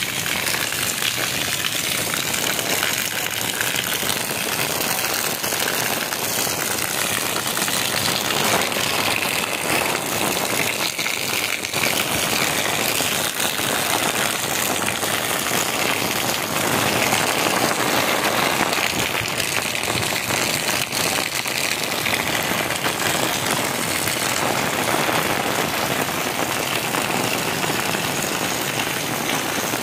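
Heavy rain falling steadily, pattering on an umbrella overhead, with runoff pouring and splashing from a roof drain spout onto a wet concrete floor.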